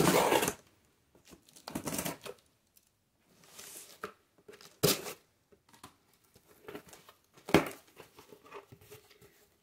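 Scissors slitting the packing tape on a cardboard shipping box, heard as a few short separate bursts of tearing and rustling cardboard with brief sharp clicks between quiet gaps.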